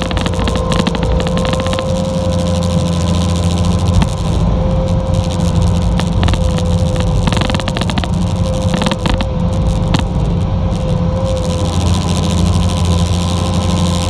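Bobcat T590 track loader's diesel engine running steadily under work, with a steady whine above the engine's hum. A few sharp clicks and knocks occur along the way.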